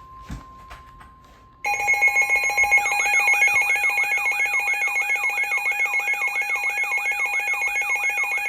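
Emergency alert attention tone: a faint steady beep, then about a second and a half in a loud steady alarm tone starts, joined a second later by a fast warbling sweep that repeats about three and a half times a second.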